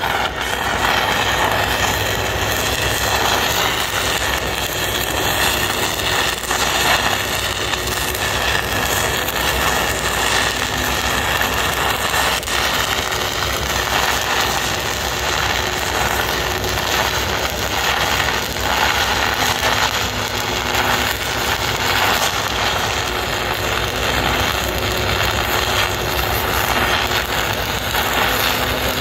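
Stick-welding arc from a 5/32-inch 6011 electrode at about 150 amps on galvanized structural steel: a steady, dense crackling and sizzling as the rod burns through the zinc coating.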